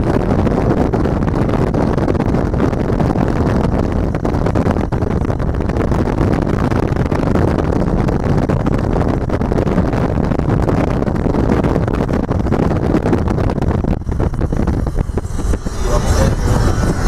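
Steady road and wind noise inside a moving car: a continuous low rumble. Music comes in near the end.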